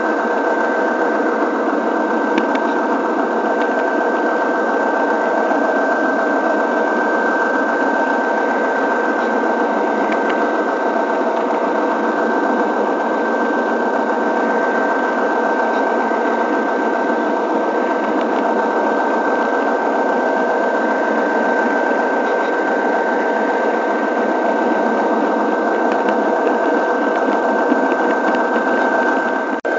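Model train running: a steady, loud whir of its small electric motor and gearing with the wheels rolling on the rails, picked up close by a camera riding on the train.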